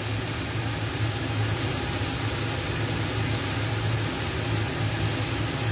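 Steady hiss of string beans and eggplant frying in a wok, over a low steady hum.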